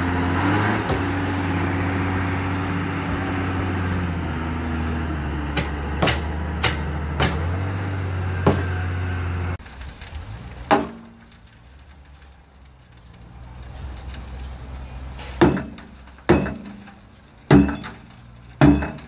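A wheel loader's diesel engine runs steadily, with a few light metal clicks. It cuts off abruptly about halfway through. Then come five sharp hammer blows on a steel concrete bucket, each ringing briefly.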